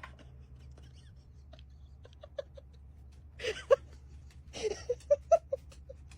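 Treat-dispensing dog toy clattering as it drops kibble and treats, a run of sharp clicks and short plastic pings in two bursts about three and a half and five seconds in.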